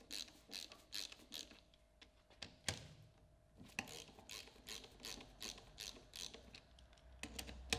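Socket ratchet clicking in short runs, about four clicks a second, as it is swung back and forth loosening the 16 mm retaining bolts on a truck air compressor, with one louder knock a little before the middle.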